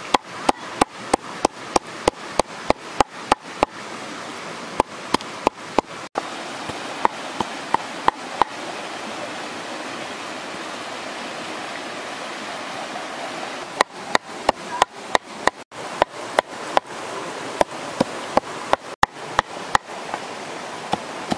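A cleaver chops frog meat on a round wooden chopping board in quick, even strikes, about three a second. The chopping stops for about five seconds midway, then starts again. A rushing stream runs steadily underneath.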